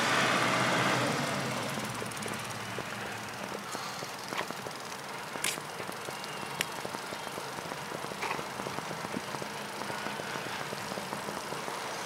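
Riding noise from a bicycle ridden along a paved path: a steady rush of wind and rolling noise on the camera's microphone, louder in the first second or two, with a few sharp clicks.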